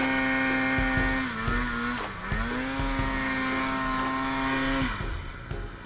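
Snowmobile two-stroke engine held at high revs, dipping briefly in pitch about a second and a half in, climbing back and holding, then dropping away near the end as the throttle is released.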